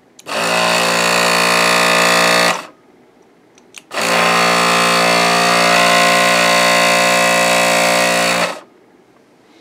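Can-type electric drive motor of an RC model warship spun up twice, briefly and then for about four and a half seconds, turning the propeller shaft through its coupler and greased stuffing tube: a steady buzzing whine that starts and stops abruptly. Not the most quiet drivetrain, which the builder expects to wear in.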